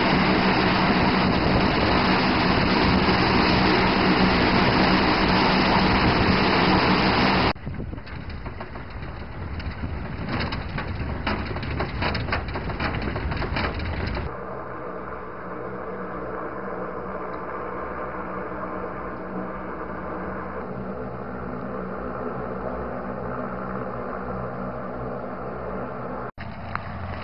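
Loud steady noise of a large aircraft's engines for about seven seconds. After a cut, a stretch of clatter and sharp clicks. Then a vehicle engine running steadily.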